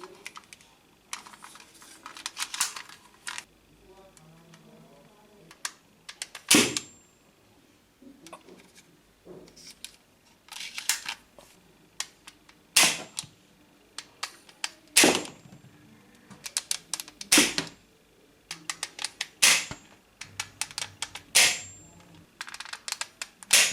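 Toy water ball gun firing with sharp snapping shots, seven in all, coming about every two seconds in the second half. Clusters of small clicks come between the shots.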